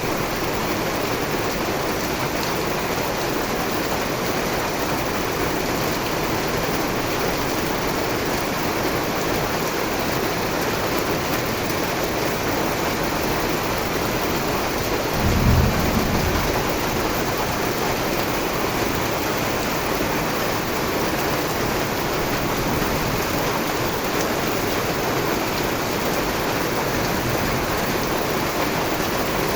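Steady rain falling, an even hiss with no letup. About halfway through, a brief low rumble swells for about a second.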